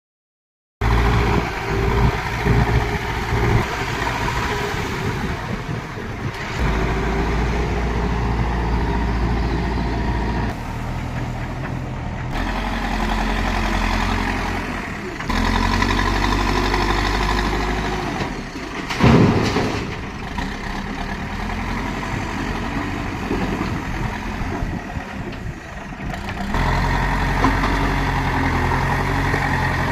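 Heavy diesel engines of earthmoving machines, a backhoe loader and dumper, running and idling at work, the engine note changing abruptly every few seconds between shots. A short loud noise stands out about two-thirds of the way through.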